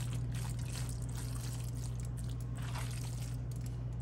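A spoon stirring a thick, wet meat-and-cheese mixture in a bowl: soft, irregular squelching, over a steady low hum.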